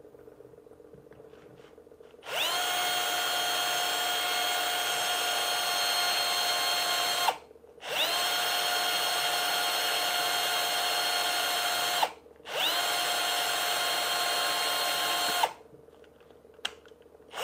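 Cordless drill boring into a solid SLA resin 3D print, running in three long bursts with short pauses between them, each starting with a quick rise in pitch. The bit grinds through the resin cleanly without cracking it.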